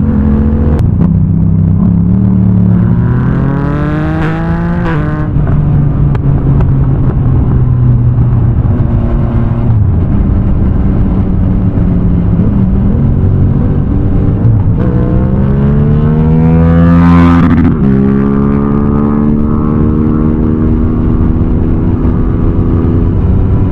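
Yamaha MT-09's three-cylinder engine running loud through a full Akrapovič exhaust line. Twice the revs climb steeply, a few seconds in and again past the middle, then drop back abruptly to a steady note.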